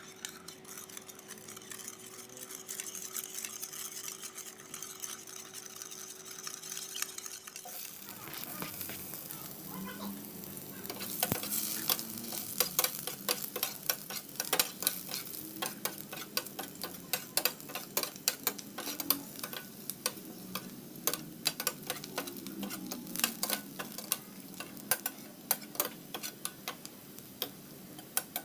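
A spoon stirring dark sauce in a ceramic bowl, then, about eight seconds in, ginger slices frying in oil in a stainless steel wok: a steady sizzle with many sharp crackles of spattering oil.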